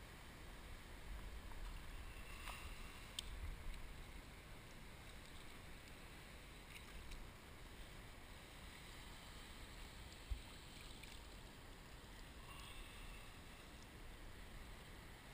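Faint, muffled wash of shallow seawater and wind around a wading angler, with a few light clicks and one dull thump about ten seconds in.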